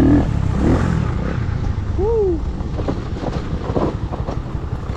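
Motorcycle engine running at low speed along a rough gravel dirt track, a dense uneven low rumble. A short rising-and-falling tone sounds about two seconds in.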